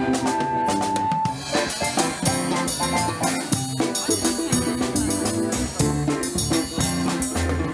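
Band music: a drum kit playing a steady beat under guitar and low bass notes.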